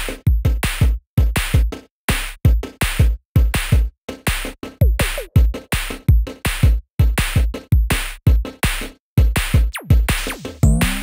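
Electronic background music with a drum-machine beat and deep kick drum, the beat stopping and starting in short bursts, with a falling and rising synth sweep near the end.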